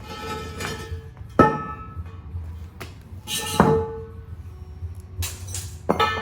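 Metal struck hard three times, about two seconds apart, each blow ringing on with a clear pitched tone, over a low steady hum.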